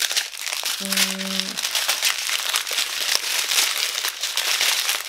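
Small plastic bags of diamond painting crystals crinkling and rustling as they are handled and sorted, with the drills shifting inside. A brief steady hummed note sounds about a second in.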